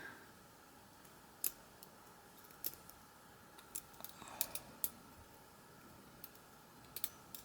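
Faint, irregular light metallic clicks, about eight of them, of a small tool working in a gutted pin-tumbler lock cylinder as a key-pin spring is fished out of its chamber.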